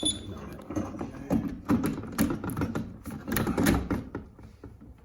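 Metal door-lock hardware clicking, knocking and clinking irregularly as the handle and latch parts are handled and fitted into the door.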